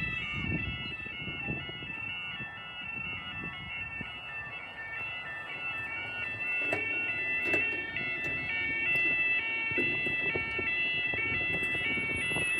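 Level crossing Yodalarm (YO3/BT) audible warning sounding, an electronic tone switching back and forth between two pitches at a slow, even pace: the crossing's warning that a train is coming and the barriers are being lowered.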